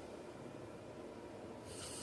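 Sleeping man's breathing between snores: a quiet pause over a low steady rumble, then about one and a half seconds in a loud, hissing breath begins.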